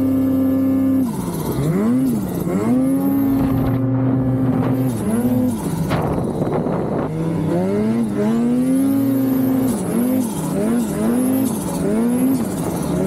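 Ski-Doo Summit Expert Turbo snowmobile's turbocharged two-stroke engine revving hard under load in deep snow. Its pitch rises, holds and drops back again and again, and there is a short rushing noise about six seconds in.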